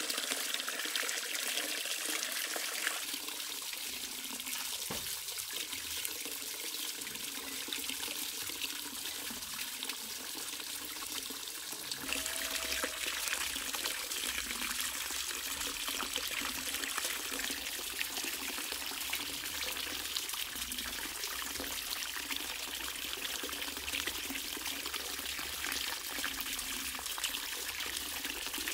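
Water running steadily from a bamboo pipe and splashing into a metal basin, with small splashes from hands washing fish in a basin of water.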